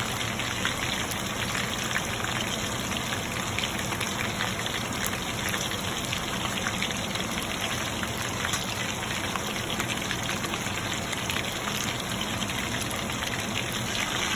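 Chicken lollipops frying in shallow oil: a steady sizzle full of small crackles.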